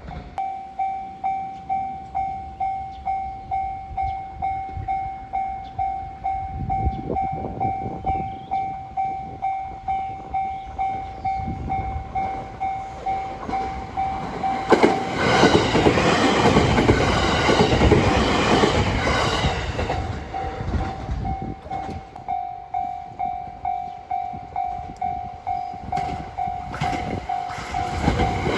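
Japanese level-crossing warning bell ringing, an electronic ding repeating about twice a second. A train approaches and passes about halfway through, its rumble and wheel noise drowning the bell for several seconds. The bell then rings on until another train comes in at the end.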